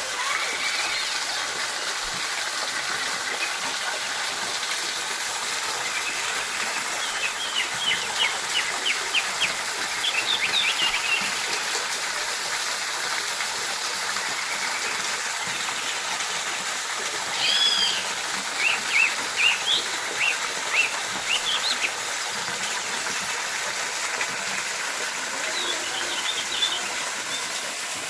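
Steady rush of water from a waterfall, with a bird calling over it in several runs of short, sharp chirps.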